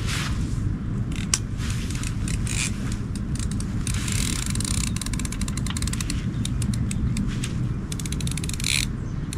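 Fishing reel being worked, its gears and ratchet ticking rapidly for a few seconds from about halfway in, over a steady rumble of wind on the microphone.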